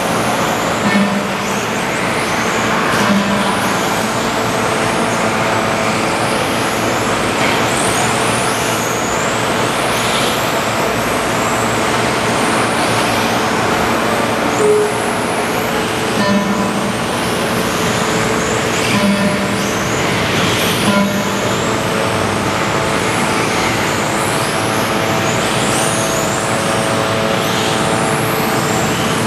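Several electric RC touring cars with brushless motors racing, their high-pitched motor whines rising and falling as they accelerate, brake and pass. Over a steady background din.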